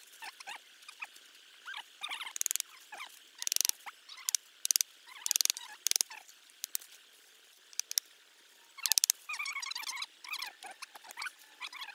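A plastic bag wrapped over a hand crinkles and rustles in irregular bursts of sharp crackles as it rummages inside a hollow tree trunk after wild honeycomb.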